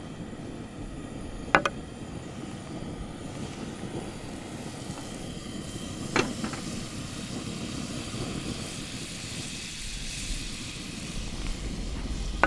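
Camp stove burner running steadily under a small nonstick pan. A couple of light knocks as butter is scraped off the knife into the pan, then from about eight seconds a soft sizzle grows as the butter melts.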